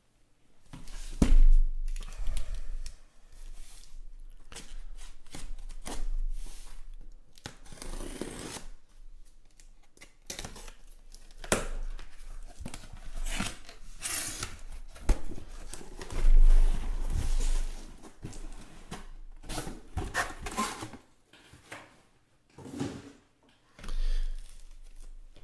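Cardboard shipping case being torn open: packing tape and cardboard flaps ripping, with rustling and scraping as the boxes inside are handled. A heavy thud about a second in and another past the middle stand out as the loudest sounds.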